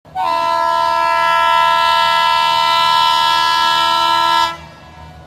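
A single long horn blast, one steady chord held for about four seconds and then cut off sharply, leaving a faint hiss.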